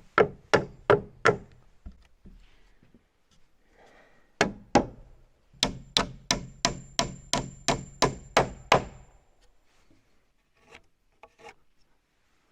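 Hammer driving nails into a wooden rafter block: a quick run of about four strikes, two more after a pause, then a steady run of about ten strikes at roughly three a second.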